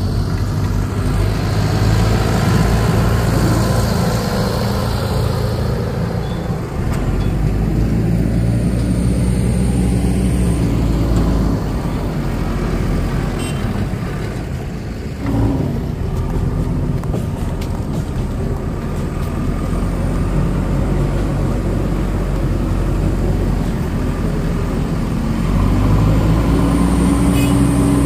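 Heavy diesel engines running, mainly a JCB 3DX backhoe loader's, with the engine note shifting in pitch and level several times. There is a brief knock about halfway through.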